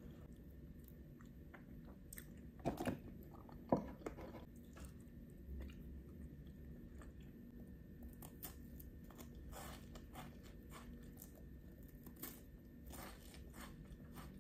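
Close-miked eating sounds: a chocolate wafer roll crunching in quick crisp clicks as it is bitten and chewed, from about eight seconds in. Earlier there are two short louder thumps about three and four seconds in.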